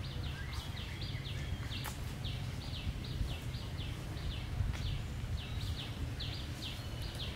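Outdoor tree-canopy ambience: irregular runs of short, high chirps, about three a second, over a steady low rumble.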